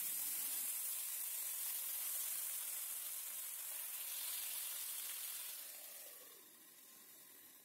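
Oil sizzling steadily in a frying pan as leaf-wrapped fish-roe parcels fry, fading away in the last two seconds.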